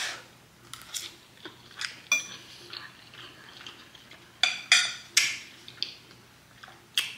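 Cutlery clinking and scraping against a plate during a meal: scattered light taps, with a few louder ringing clinks about four and a half to five seconds in.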